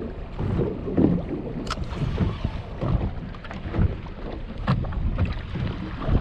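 Wind buffeting the microphone and choppy water slapping the hull of a small boat, with irregular low thumps every second or so.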